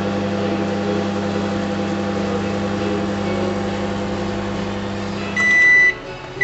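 An electrical appliance hums steadily, then cuts off about five and a half seconds in and gives a short, high electronic beep.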